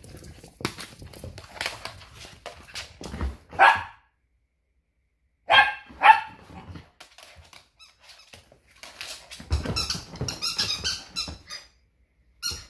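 A greyhound barking a few times, loudest about four and six seconds in, while it plays with a rubber duck squeaky toy that squeaks now and then among rustles and knocks.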